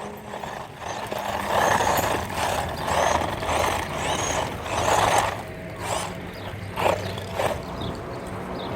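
GP Toys Luctan S912 1/12-scale battery-electric off-road RC car driving in repeated bursts of throttle, its motor and running gear surging about every second. There are three sharp knocks in the second half.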